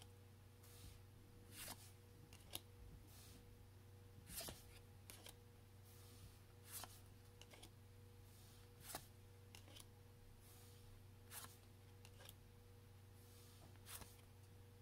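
Faint flicks and soft swishes of Pokémon trading cards being handled and flipped through one at a time, roughly every second or two, over a steady low electrical hum.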